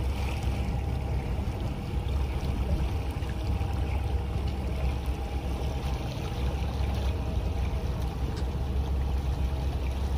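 Steady low rumble of a boat's engine running, with water splashing and trickling against a hull.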